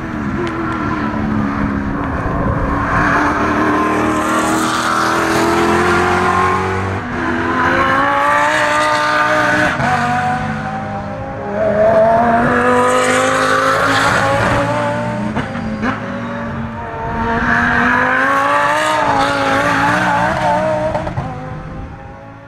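GT3 race cars at full throttle passing one after another, about four in turn, each engine note rising as it accelerates; a Lamborghini Gallardo GT3's V10 goes by in the middle. The sound fades out near the end.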